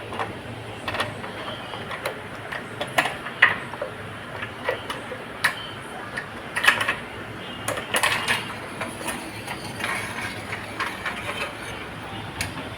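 Sliding-door hanging wheel being fitted into place: irregular clicks and knocks of the hardware being handled and pushed in, the loudest a little past the middle.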